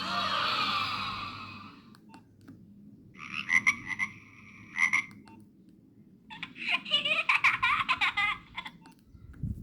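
Nokia 1661 mobile phone playing three short tone clips through its small speaker, one after another with brief pauses, each lasting about two seconds.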